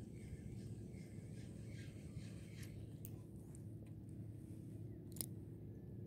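Low, steady rumble of wind and handling noise on the microphone, with a few faint clicks and one sharp click about five seconds in.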